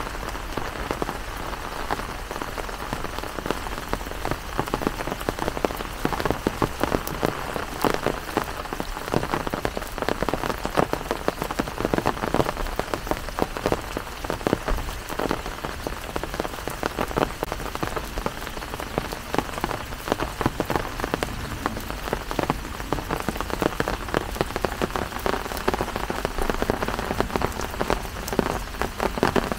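Steady rain falling, with many separate drops striking close to the microphone.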